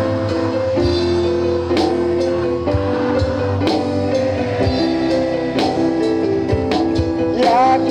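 A band plays an instrumental passage between sung lines: guitar chords held over a steady drum beat.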